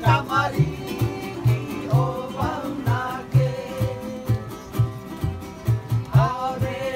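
Voices singing together to strummed acoustic guitar and ukulele, with a steady bouncing beat in the low strings.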